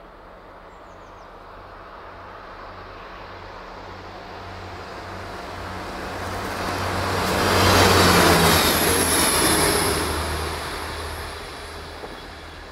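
Yellow diesel railcar passing by: its engine drone and the rumble and hiss of its wheels on the rails swell as it approaches, are loudest about eight seconds in, then fade as it pulls away.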